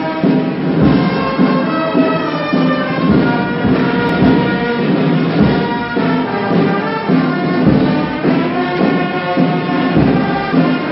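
Brass band music, held brass notes over low drum beats.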